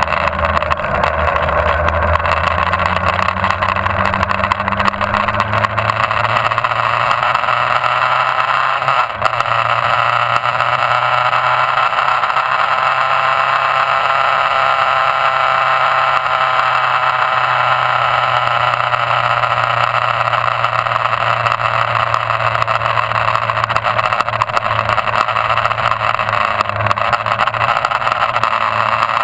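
Motorcycle engine running under way on a track, picked up by a camera mounted on the bike, with steady wind rush over the microphone. The engine note rises and then falls again through the middle, with a brief drop in level about nine seconds in.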